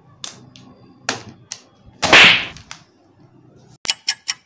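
Several quick whooshing swish sound effects, the loudest about two seconds in, then a fast clock ticking starts near the end at about five ticks a second, marking time dragging by.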